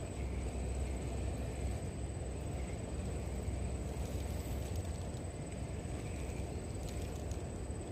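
Steady outdoor riverside ambience: a low rumble, like wind on the microphone, under a thin steady high tone, with a few faint clicks near the end.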